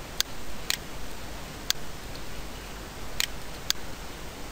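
Computer mouse clicking: five light, separate clicks at uneven intervals over a steady background hiss.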